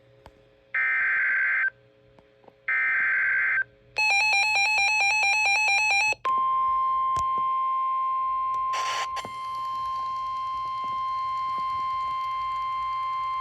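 Emergency Alert System alert tones. First come two short bursts of screechy digital data tones, the SAME header. Then about two seconds of a harsh, rapidly pulsing buzzy tone, then a long steady high single-pitch alert tone that holds to the end, with a brief burst of hiss about nine seconds in.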